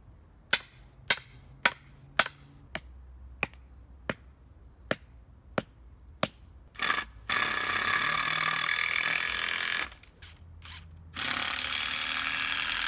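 A series of about a dozen sharp clicks, roughly two a second, then two long cranking attempts on a DuroMax 5500E portable generator: loud, noisy stretches lasting a couple of seconds each, the engine not yet running.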